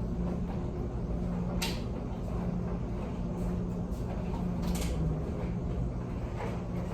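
Steady low hum inside a car, with two short clicks about three seconds apart.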